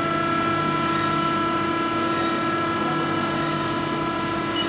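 A machine running with a steady drone at a constant pitch.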